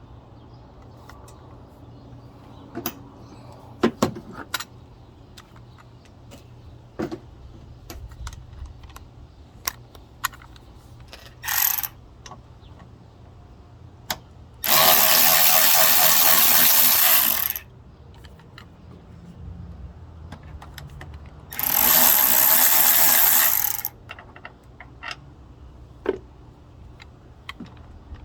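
A power tool runs in two loud, steady bursts of about three seconds each, about halfway through and again some six seconds later, with a shorter burst before them. Scattered clicks and clinks of hand tools and metal parts come in between. The bursts go with backing out the two 14 mm bolts of a 2004 Camry's upper engine mount.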